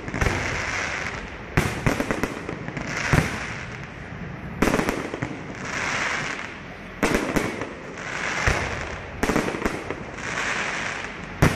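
Aerial fireworks bursting overhead: sharp bangs every second or two, some followed by quick clusters of crackling, with a swelling hiss of sparks between the bursts.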